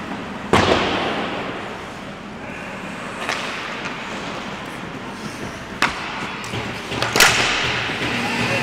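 Ice hockey play in an echoing rink: sharp cracks of puck, sticks and boards, four in all. The loudest is about half a second in, and the others come near three, six and seven seconds.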